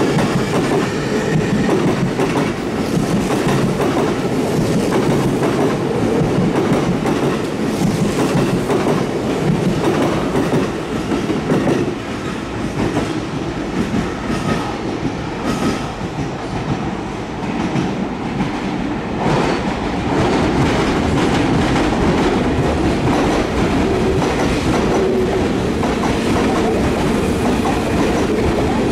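Sotetsu electric commuter trains running through the station's points and crossovers: a steady rumble of steel wheels, clattering over the rail joints and crossings.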